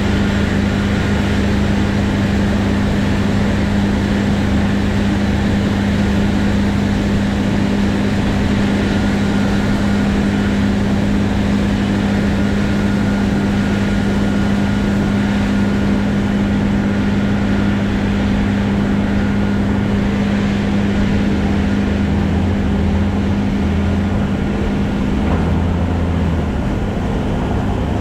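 Heavy diesel farm machinery engine running steadily at constant speed: a loud, deep, even drone, as in working a wheat field at harvest.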